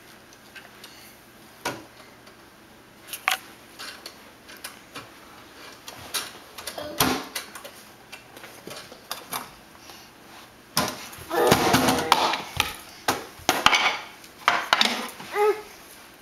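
Toy dishes and utensils knocking and clattering against a wooden play kitchen: scattered single taps at first, then a busy run of clatter about two-thirds of the way in.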